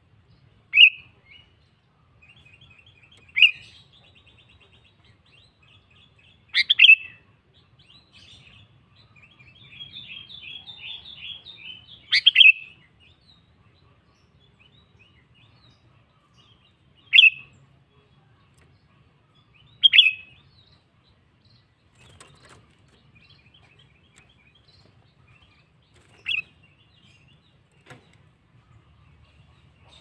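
Sooty-headed bulbul (kutilang) calling: about seven loud short calls spaced a few seconds apart, with softer rapid twittering chatter between them in the first half.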